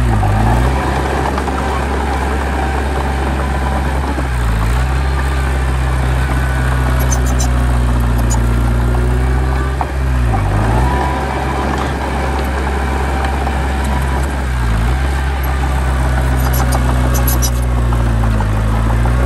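Heavy diesel engine of an earthmoving machine running steadily, its pitch dipping briefly about every four to five seconds as the load comes on and off.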